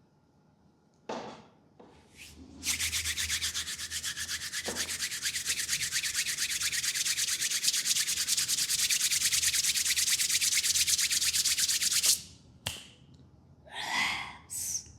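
Hands rubbing briskly and rapidly during a massage, a fast scratchy rasp that starts a few seconds in and stops suddenly about three seconds before the end. A few short scrapes and rustles come before and after it.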